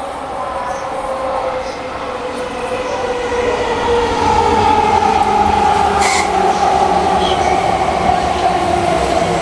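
Tokyo Metro 05 series commuter train pulling into the platform and braking, getting louder as it nears. Its motor whine falls slowly in pitch as it slows, and there is one sharp click about six seconds in.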